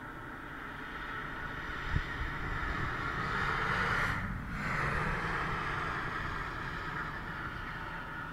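Expressway traffic noise: a car's tyres and engine swell as it comes closer, pass at their loudest about four seconds in, then fade, with a brief knock about two seconds in.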